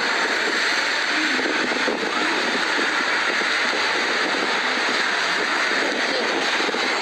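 Sea waves breaking on a sandy beach: a steady rushing surf.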